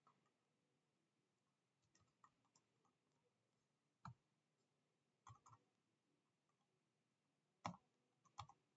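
Near silence broken by about half a dozen faint, scattered clicks from a computer being worked.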